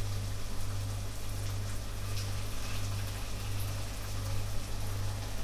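Potato sochniki frying in hot oil in a pan: a steady sizzle with scattered small crackles, over a steady low hum.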